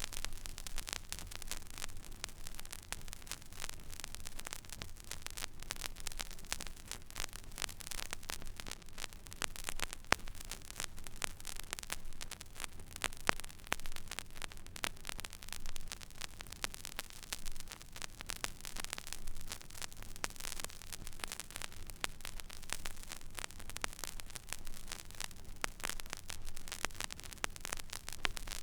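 Vinyl record surface noise from a silent groove being played: steady hiss with dense, fine crackle and scattered pops, over a low hum. One louder pop comes about halfway through.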